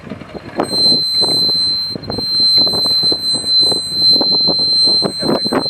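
A steady, high-pitched, alarm-like tone starts about half a second in and holds on, with a brief dip near the two-second mark. Under it is uneven rough noise from a Range Rover P38 climbing a steep grassy slope.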